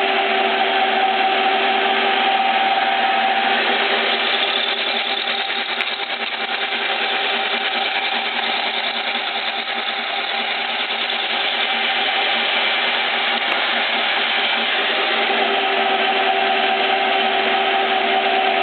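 Stanko 6T10 vertical milling machine running at 560 RPM, an end mill cutting into 10 mm steel plate as the rotary table is fed by hand. A continuous cutting and gear noise with a steady whine that fades in the middle and comes back near the end.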